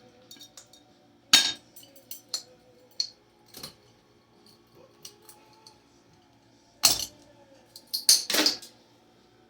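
Sharp metallic clinks and knocks as a Hampton Bay ceiling fan is being broken apart: one loud strike a little over a second in, another near seven seconds, and two close together near the end, with light ticks and rattles between.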